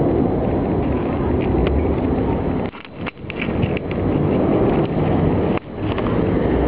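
Wind buffeting the microphone: a loud, rough rumble that drops away briefly twice, near the middle and again a little later.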